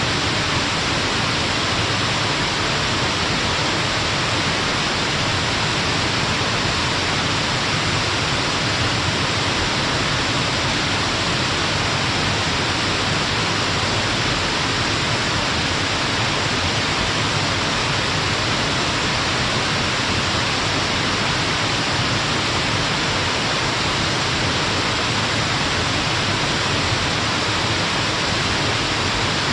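Stepped waterfall on a mountain river, water cascading over rock ledges in a steady, unbroken rush.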